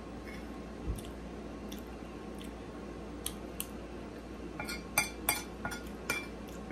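Metal cutlery clinking and scraping against a ceramic plate. There are a few light taps at first, then a quick run of clinks near the end.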